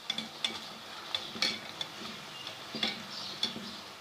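Bhallas frying in hot ghee, sizzling steadily, while a spoon turns them and knocks against the pan several times.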